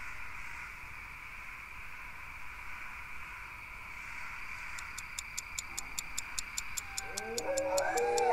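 A steady high hiss of night-time ambience. About five seconds in, a regular clock-like ticking begins, about four ticks a second. Near the end, dogs begin to howl, their wavering calls rising in loudness.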